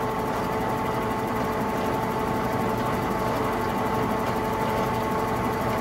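Blanchard No. 18-36 vertical-spindle rotary surface grinder running, its 25-hp motor turning the 18-inch segmented wheel: a steady, even machine hum with a couple of steady tones and no change.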